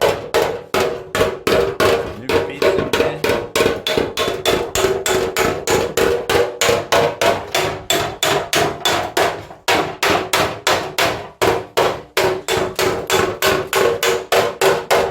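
A hammer striking a sheet-steel body panel rapidly and evenly, about four blows a second, each blow leaving the metal ringing: panel beating.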